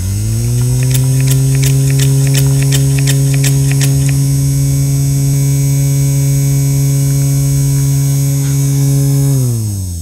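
Small electric motor of a handheld spray fan spinning up as it is switched on, running with a steady hum, then winding down near the end as it is switched off. In the first four seconds there is a quick run of clicks, about three a second, while the fan sprays its water mist.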